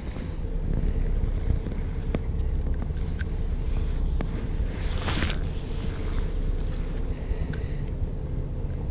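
Boat engine running steadily: a low rumble with a constant hum, under wind noise on the microphone. A brief gust of hiss comes about five seconds in, and there are a few faint clicks.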